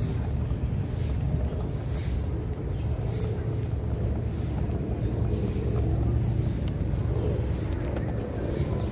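Steady low rumble of wind buffeting the microphone of a camera carried at walking pace, with a faint regular pulse about every half second or so in step with the walker's stride.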